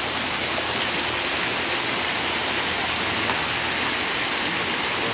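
Water jets splashing steadily into a swimming pool, an even rushing hiss.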